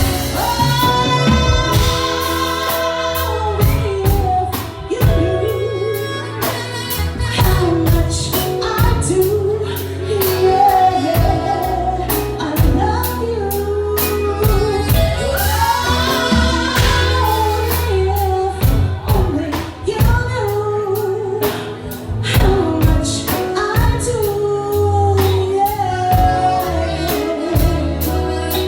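Live R&B band, with bass and drums keeping a steady beat, backing a woman singing a long, flowing lead melody.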